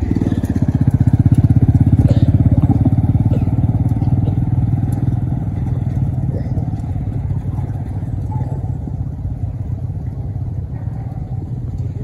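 Motorcycle engine of a motorcycle-and-sidecar cart running and pulling away, loudest a second or two in and then fading steadily as it moves off.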